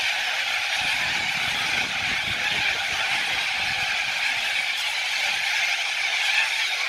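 A large flock of white cockatoos calling all at once, many harsh screeches merging into a continuous, steady wash of sound.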